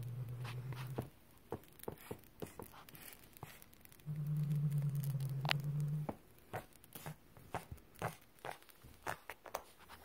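A domestic cat growling low while it bites and holds a feather wand toy: one growl ending about a second in and a louder one from about four to six seconds in, with scattered clicks and rustles of teeth and claws on the feathers and carpet in between.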